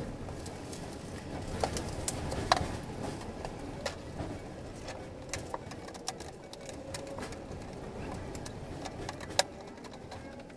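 Scattered light clicks and taps of long white tongue-and-groove cladding boards being handled and laid out by hand on plastic stools, with one sharper knock near the end, over a steady low background noise.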